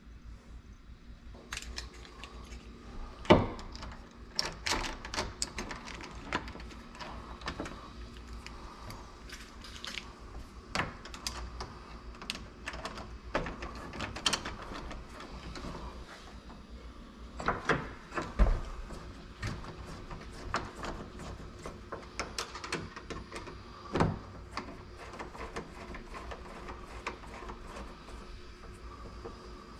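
Irregular small metal clicks and taps from hand work on a door lock during a rekey, with a few louder knocks about three, eighteen and twenty-four seconds in.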